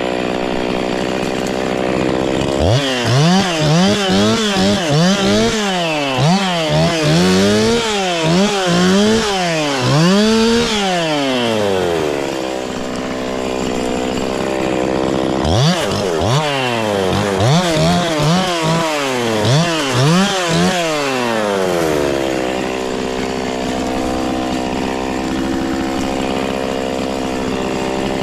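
Two-stroke chainsaw idling, then revved in two runs of quick bursts, its pitch rising and falling about once a second. It settles back to a steady idle between the runs and near the end.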